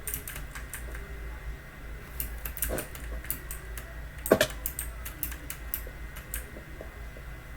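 Typing on a Logitech mechanical keyboard with clicky blue-style switches: irregular sharp key clicks, with a louder, deeper key strike about three seconds in and the loudest one about four and a half seconds in.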